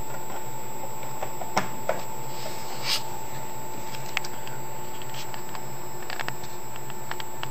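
Steady electrical hum with a thin high whine, with a few light clicks and taps and one brief soft hiss about three seconds in.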